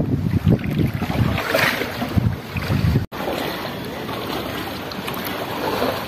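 Sea sounds: waves and wind washing unevenly. The sound cuts out for an instant about three seconds in, then goes on steadier and a little quieter.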